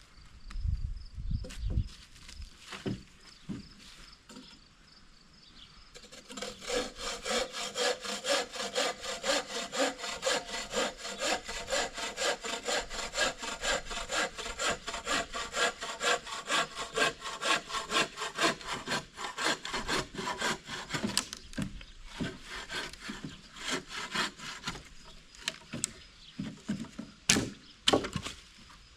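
Hand saw cutting through wood in rapid, even back-and-forth strokes, starting about six seconds in and stopping after about fifteen seconds, followed by scattered knocks of wood.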